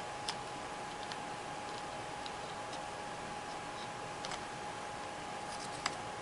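Jigsaw puzzle pieces being handled and set into place, giving a few scattered light clicks at irregular intervals over a steady background hiss and a faint constant high tone.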